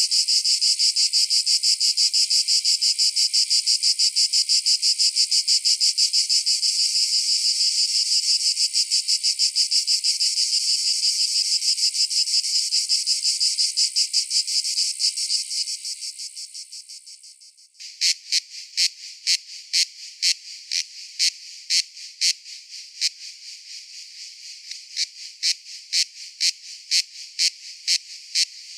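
Cicadas calling: a loud, high, rapidly pulsing buzz fades away about two-thirds of the way through. It gives way abruptly to a slower series of sharp high clicks, about three a second.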